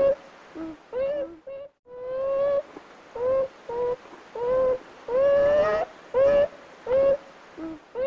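Beaver giving a run of whining calls, about a dozen, each held on one pitch or rising slightly. Some are long, some clipped short, and a few shorter, lower notes fall in between.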